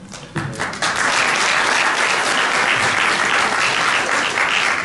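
Audience applauding: a few scattered claps at first, filling out within the first second into steady applause that dies away near the end.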